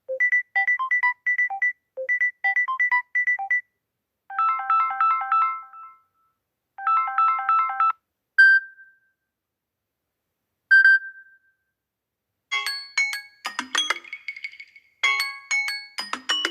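Samsung Galaxy phone ringtones played one after another, with short gaps between them. First comes a quick beeping electronic phrase, twice, then a chiming chord pattern, twice. Two single chimes follow, and a busier tone pattern starts near the end.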